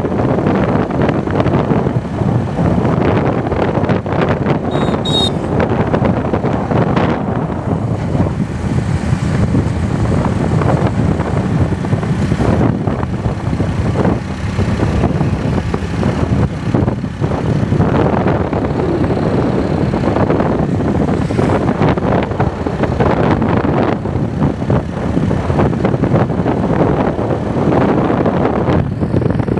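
A vehicle running on the road with wind buffeting the microphone, a steady rumbling noise throughout.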